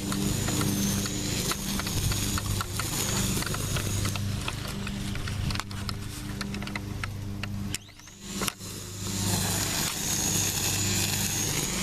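Gas string trimmer (weed eater) running steadily with a high whine; it drops off sharply about eight seconds in and picks back up under a second later.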